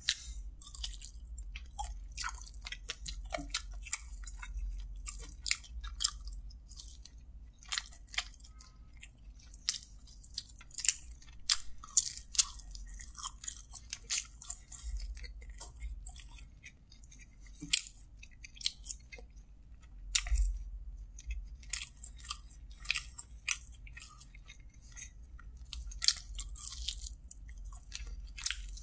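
Close-miked chewing and biting: a person tearing meat off a sauced fried chicken drumstick with the teeth and chewing it, a steady run of many short sharp mouth clicks and smacks.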